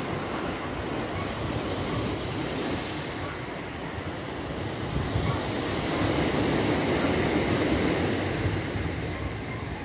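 Steady rushing wind noise buffeting the microphone, with low rumble, swelling about six seconds in.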